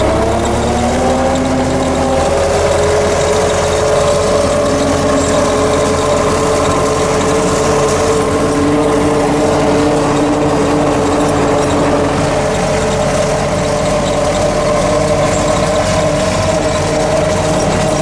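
MTZ-50 tractor's four-cylinder diesel engine running steadily under way, heard from inside the cab, with a steady whine over it. The pitch rises slightly in the first couple of seconds and then holds.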